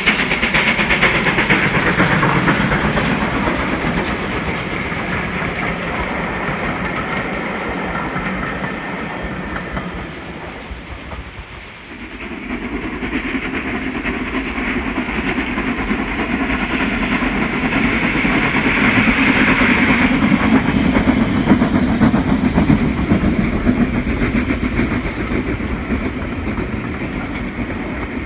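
A steam locomotive working hard as it passes, its exhaust and steam loud over the rumble of the train, followed by the carriages rolling by on the rails. The sound drops away briefly about twelve seconds in, then builds again as a steam train approaches and its coaches pass close by.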